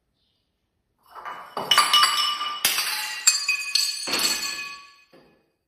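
A clatter of hard objects striking, starting about a second in: several sharp clinks in a row, each leaving a ringing tone, dying away near the end.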